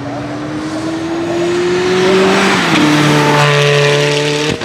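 A racing vehicle's engine accelerating hard, its note climbing steadily, then dropping quickly about two and a half seconds in as it passes by and carries on at a lower steady pitch. The sound breaks off abruptly just before the end.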